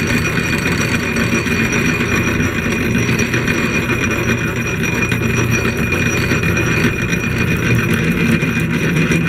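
A.D. Vance No. 12 blacksmith drill press, driven by an electric motor, running steadily with a hum and a high whine as its bit is fed down by hand into metal and begins to cut.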